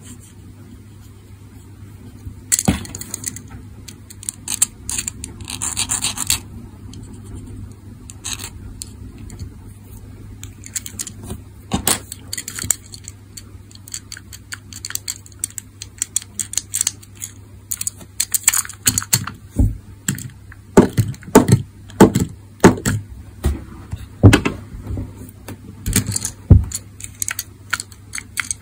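A die-cast Tomica model car handled close to the microphone: fingers rubbing, scraping and clicking against its metal body and plastic chassis as it is pressed and turned. The clicks and taps come thicker and louder in the second half. A faint steady low hum runs underneath.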